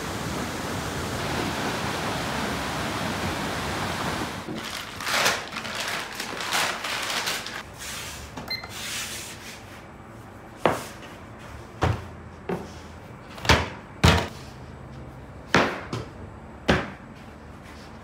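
A steady hiss of ambient noise, then knife-and-dough work on a wooden worktable: a knife cutting through a big mass of dough and pieces being set down. It gives about seven sharp knocks in the second half.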